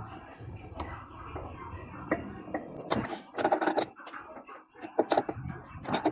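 Wrench tightening the 13 mm bolts that clamp a washing machine's wash basket to its transmission, with scattered metal clicks and knocks as the tool is worked.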